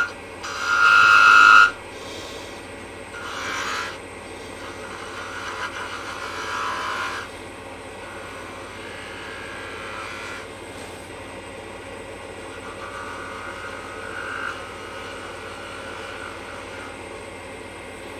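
Wood lathe running while a turning tool cuts the tip of a spinning mahogany finial: a loud high-pitched squeal of the tool edge on the wood for the first second and a half, then softer scraping cuts a few seconds in and again around six seconds, and brief fainter squeals near the middle, over the steady hum of the lathe.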